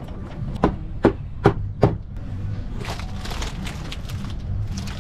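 Rotten wooden windshield framing of a boat's upper helm being wrenched loose by hand: four sharp knocks about a second in, then a spell of crackling and creaking as the old wood splits and gives way.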